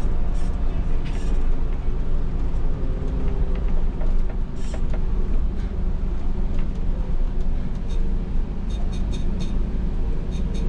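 Inside the cab of a MAN NL283 Lion's City city bus on the move: its diesel engine running under a steady deep rumble of engine and road noise, with scattered creaks and rattles from the bus body, including a quick run of clicks about nine seconds in.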